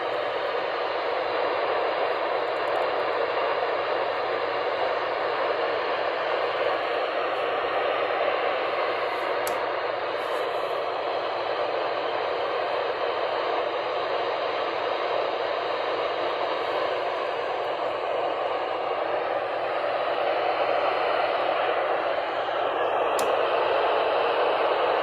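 Steady static hiss from a weather radio tuned to a weak, distant NOAA Weather Radio station, with the broadcast only faintly present under the noise.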